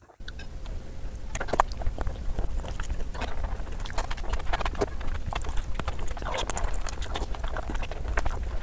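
Close-miked eating sounds: a quick, uneven run of wet smacking and chewing clicks as a curried chicken leg is bitten and chewed, over a steady low rumble.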